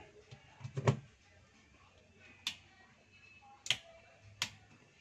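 A heavy knock about a second in, then three sharp, separate clicks, from handling and switching on the opened inverter welding machine as its panel display lights up.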